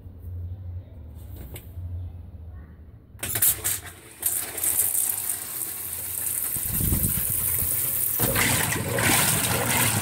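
Consul 16 kg top-load washing machine in its rinse. At first only a low motor hum, then from about three seconds in the water churns and splashes as the load is moved, growing louder near the end as the whole load is whirled round in the tub.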